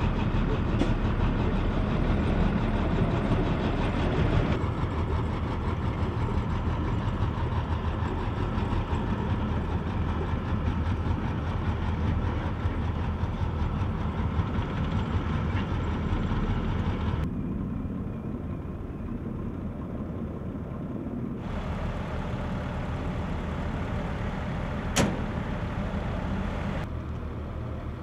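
Tank engine running steadily with a low rumble. Its sound changes abruptly several times, and there is a single sharp click near the end.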